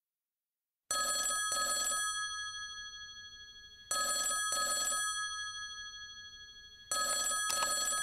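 Telephone ringing with a double ring: three pairs of rings, about three seconds apart, each pair dying away slowly. The ringing starts about a second in.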